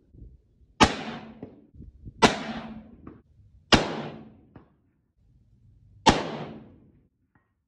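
Four rifle shots. The first comes about a second in, the next two follow roughly a second and a half apart, and the last comes after a longer pause of over two seconds. Each sharp crack trails off in a short echoing tail.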